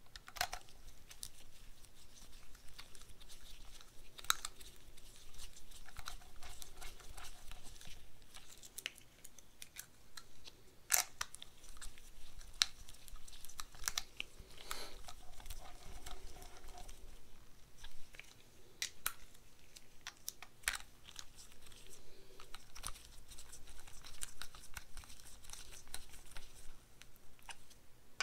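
Light, irregular metal clicks and scrapes of bolts being run by hand into a new oil pump housing on an engine block with a socket on a short extension.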